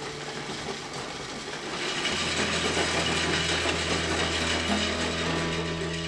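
Ceramic ball mill running: milling jars turning on its rollers with a steady mechanical churning noise that grows louder about two seconds in, over soft background music.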